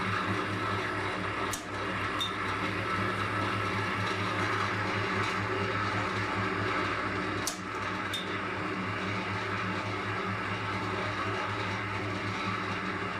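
Homemade wire-straightening and cutting machine for fishing leaders running with a steady motor hum. Twice, about six seconds apart, it gives a pair of sharp clicks half a second apart.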